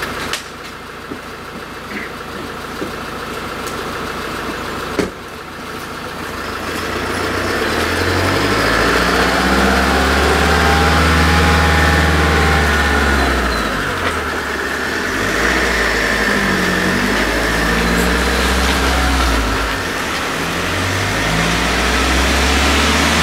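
SUV engine towing a mobile sawmill on its trailer, getting louder from about six seconds in as it pulls away and drives off, its pitch rising and falling. A sharp knock comes just before, about five seconds in.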